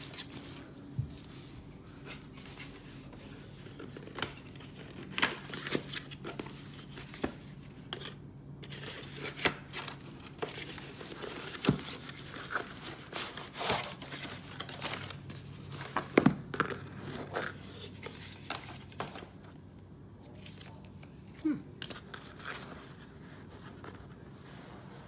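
Tissue paper crinkling and a cardboard gift box being handled and opened, in scattered short rustles and scrapes. Near the end a foam insert is lifted out of the box.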